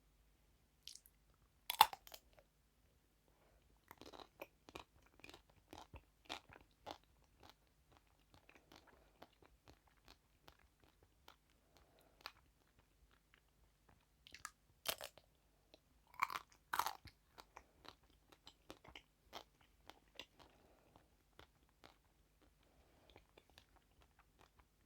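Close-up crunching as teeth bite through the hard chocolate shell of a Magnum ice cream bar, then chewing. There are loud sharp bites about two seconds in and again around fifteen and seventeen seconds, with a patter of smaller crackles and softer chewing between them.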